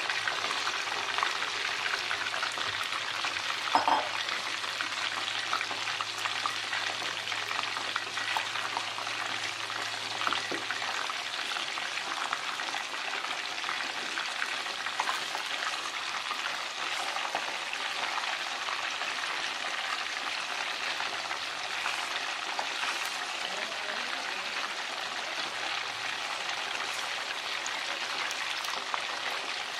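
Chicken drumsticks deep-frying in a stainless steel pot of hot oil: a steady crackling sizzle, with chopsticks turning the pieces and a brief louder knock about four seconds in.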